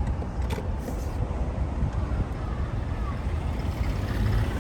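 Steady low rumble of road and running noise inside a Toyota Land Cruiser Prado 150's cabin while driving, with a faint click about half a second in.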